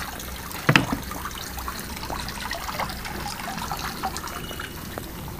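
Steady trickle of filtered water from a small pond pump falling back into a garden pond, with one sharp knock just under a second in.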